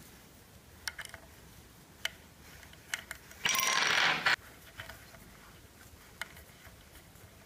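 Small sharp metallic clicks, about six spread through, and one brief scraping rustle in the middle, which is the loudest sound: small metal parts being handled at the adjustment slot and screw of an aluminium laptop docking station.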